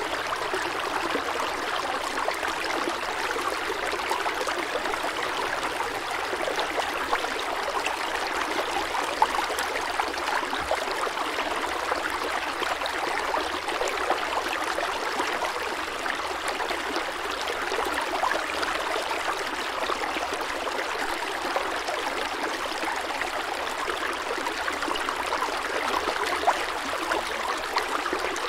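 Steady rushing water with a fine trickling, crackling texture, even in level throughout.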